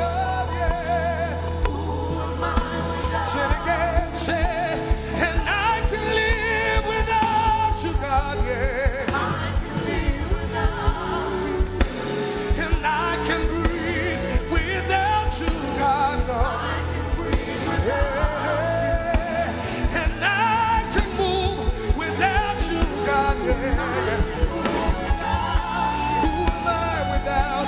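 Live gospel worship music: a singer over a band, with drums and a heavy bass line.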